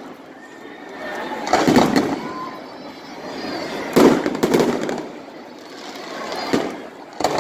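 Aerial fireworks shells bursting: a cluster of bangs about a second and a half in, the loudest bang at about four seconds followed by a quick run of smaller pops, and two single bangs near the end.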